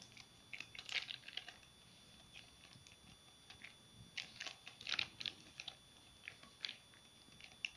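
Fingertips patting dough flat on a thin plastic sheet, the plastic giving faint, scattered crinkles and clicks in a few short clusters.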